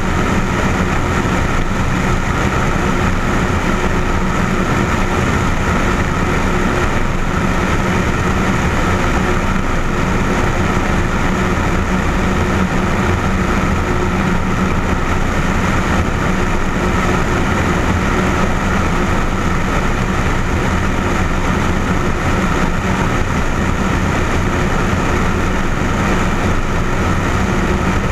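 Light aircraft's engine and propeller running steadily in flight, with a constant hum under loud wind rush over the camera mounted on the outside of the plane.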